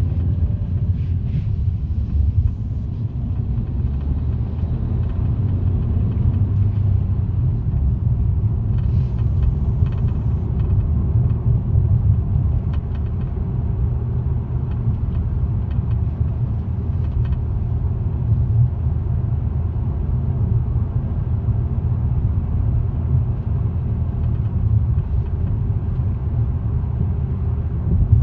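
2018 Toyota Corolla: a steady low rumble with faint, irregular rattling ticks scattered through it, the rattle the car is being recorded for.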